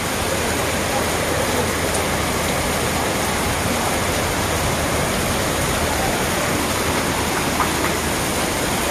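Heavy rain pouring down steadily onto a flooded street.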